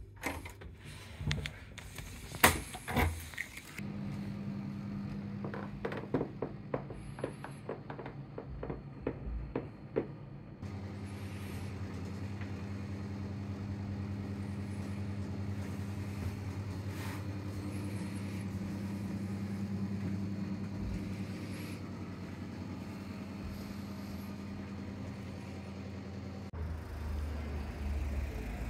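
Sharp clicks and clacks of a hotel room door's lock and handle being worked with a key card, then a steady low hum with scattered light ticks and knocks.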